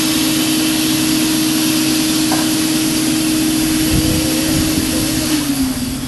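Vacuum cleaner running steadily as the draw on a wood gasifier, a whine over a loud rushing hiss. About five seconds in it is switched off, and its motor whine slides down in pitch and fades as it winds down.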